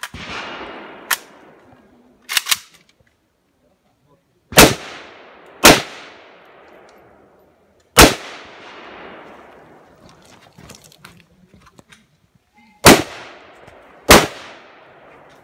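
Rifle shots fired singly at irregular intervals, with five loud reports each trailing off in an echo. There are a few fainter cracks in the first couple of seconds.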